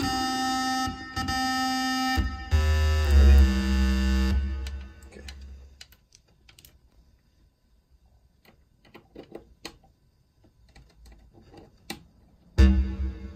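Homemade breadboard square-wave synthesizer playing held notes that step in pitch, with a deep bass note joining about two and a half seconds in. The notes die away around five seconds in, leaving only scattered clicks, and loud notes start again near the end.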